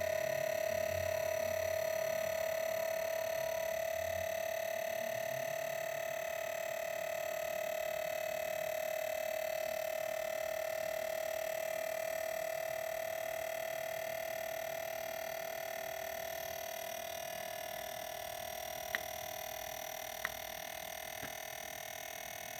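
Wanbo T2 Max New projector giving off a loud, steady whine, which the owner takes for a fault in the newly arrived unit. Many higher tones sit above its main pitch, and the whine drifts slightly upward in pitch as it eases a little in level. A few small clicks come near the end.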